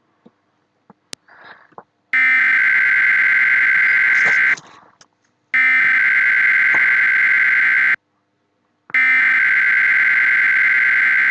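Emergency Alert System SAME header from EAS encoder software: three identical bursts of harsh, buzzy two-tone data, each about two and a half seconds long, with a second's gap between them. This is the digital header that opens an EAS alert, repeated three times.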